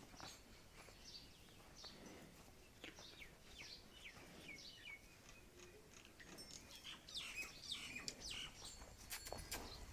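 Small birds chirping faintly, a scattered run of short falling chirps that grows busier in the last few seconds.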